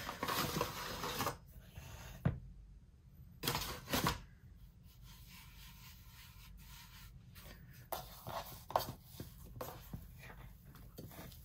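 A bread-machine pan with a wire handle being handled on a granite countertop: rubbing and rustling, then a sharp knock about two seconds in. After a quiet stretch come a few light taps as hands work the risen dough in the pan.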